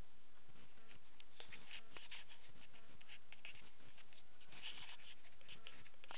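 Light rain pattering on a hoop house's polyethylene sheeting: a steady run of small irregular ticks and taps.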